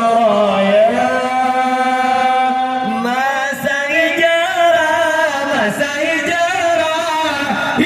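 A man's voice chanting Islamic devotional verses through loudspeakers, with long held notes that waver and slide in pitch.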